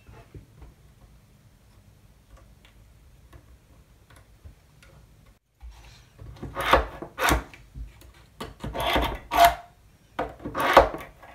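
A small hand tool scraping along the thin wooden planking of a ship model, in a series of short rasping strokes that begin about halfway through after a quiet start.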